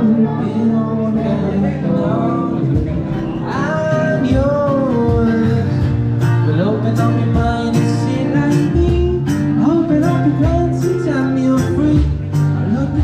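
Music: a man singing over acoustic guitar and a steady drum beat.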